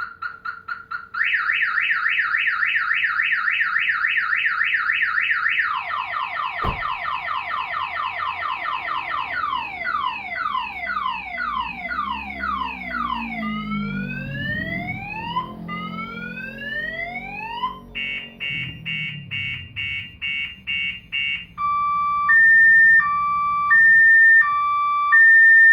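Battery-backup siren of a Viper 3706V car security system cycling through its alarm tones: a fast warble, rapid pulsing, repeated sweeping chirps, slower rising whoops, quick beeps, then a two-tone hi-lo alternation near the end.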